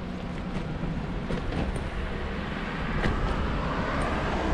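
Steady rolling and wind noise from bicycles riding along a rough, poor-quality bike path, with a deep rumble, growing louder about three seconds in.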